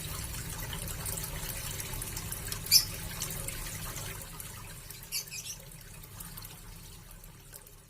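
Water trickling steadily into a small fish pond with a low hum beneath it, broken by a sharp splash about three seconds in and a smaller one after five seconds; the whole sound fades out toward the end.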